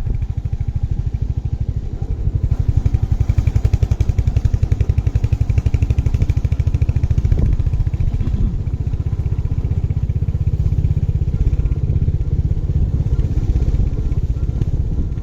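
Royal Enfield 350 single-cylinder motorcycle engine running steadily while riding, with a rapid, even exhaust thump. It is a little louder from about two seconds in until about eight seconds in.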